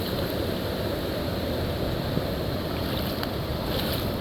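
Hurricane wind blowing over a phone's microphone, a steady rushing rumble, with rain and scattered faint ticks of drops.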